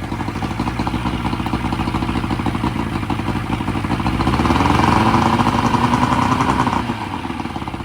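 New 70-horsepower outboard motor running, revved up from about halfway through, held there for a couple of seconds, then dropping back to idle near the end.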